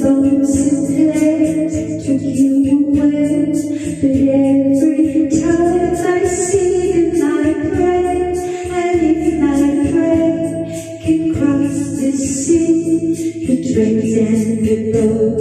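A woman singing a slow pop ballad into a handheld microphone over a karaoke backing track, with long held notes.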